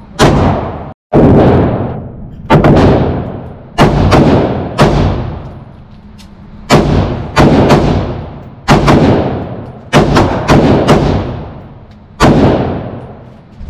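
Handgun fire on an indoor shooting range: about fifteen single shots at irregular spacing, some in quick pairs, from several shooters. Each shot is followed by a long echoing tail.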